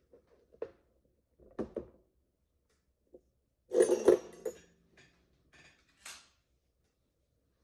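Metal instruments being handled and set down: a few scattered clicks and knocks, a louder rattling clatter about four seconds in, then a few light clinks.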